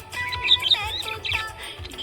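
Budgerigars chirping and warbling in quick trills over background music with held notes.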